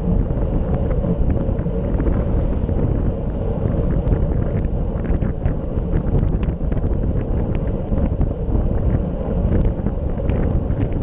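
Wind buffeting the microphone of a handlebar-mounted camera on a road bike ridden fast, a steady heavy rumble with scattered light clicks and rattles.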